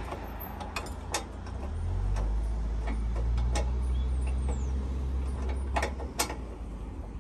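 Scattered sharp metal clicks and knocks as a hydraulic jockey-wheel jack is hooked onto its chassis bracket, over a low steady rumble that swells about two seconds in and fades near six seconds.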